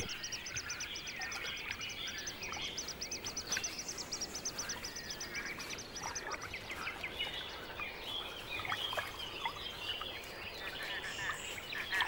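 Great crested grebe chick peeping persistently in short high-pitched calls, begging to ride on its parent's back. A fast, even, high ticking trill runs alongside and stops a little past halfway.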